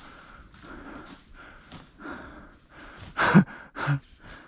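A person breathing hard in a steady rhythm of about two breaths a second while moving on foot through dry leaf litter, then two loud, short grunting exhales a little over three seconds in and just under four.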